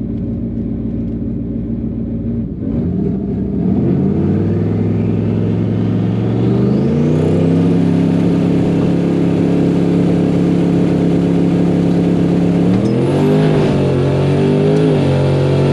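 Twin-turbo Coyote 5.0 V8 Mustang held on the brake at the starting line. The revs climb in steps while a rising turbo whistle builds, then hold steady at raised RPM as the turbos come up to boost. Near the end the revs waver just before launch.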